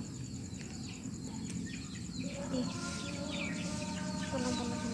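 Outdoor ambience: birds repeating short falling chirps over a steady high insect trill, with a low rumble of wind on the microphone. About two seconds in, a faint sound of several held steady tones joins.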